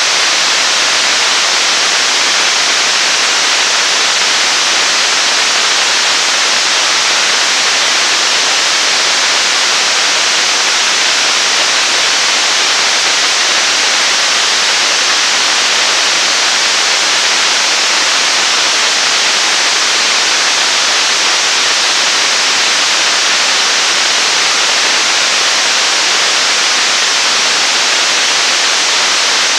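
Staged-combustion-cycle liquid rocket engine of about 9 tonnes thrust firing in a static hot-fire test, in its steady burn: a constant rushing noise of the exhaust that holds the same level and pitch throughout.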